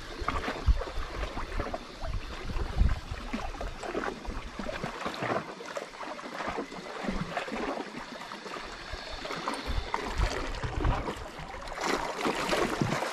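Sea water splashing and lapping against the rocks in irregular sloshes, with low wind buffeting on the microphone in the first few seconds.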